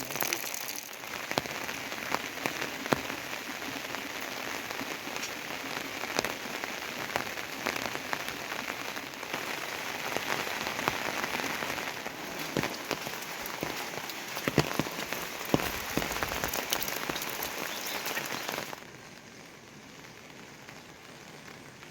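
Heavy rain falling steadily, with many individual drops striking close by. About 19 s in it turns abruptly quieter.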